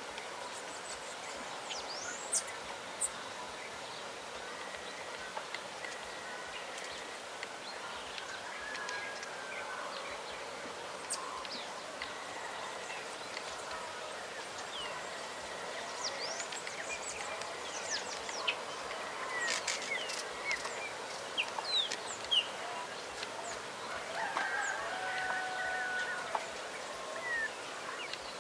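Rural outdoor ambience full of birds calling: short chirps and quick whistled glides scattered throughout, growing busier past the middle, over a steady background hiss. Near the end one bird gives a longer call held on two steady notes.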